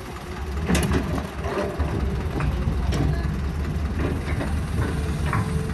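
Hydraulic excavator's diesel engine running steadily, with sharp metallic clanks about a second in and again near three seconds, and lighter knocks between.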